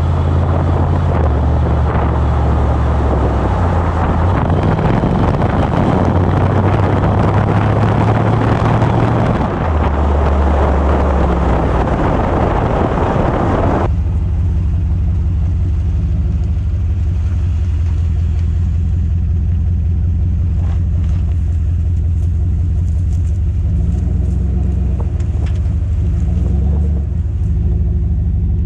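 2014 Chevrolet Silverado's 5.3-litre V8 running through a Flowmaster Super 44 muffler with the resonator deleted: a deep, steady exhaust drone whose pitch steps up and down. A loud rushing noise over it for the first half cuts off abruptly, leaving the low exhaust drone alone.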